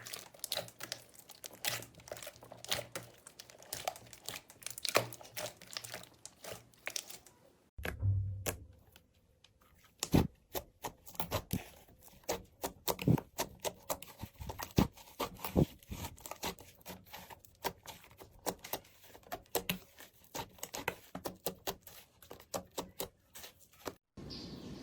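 Slime being squeezed and stretched by hand, giving a dense run of small crackles, pops and clicks. About a third of the way in it pauses briefly, then starts again.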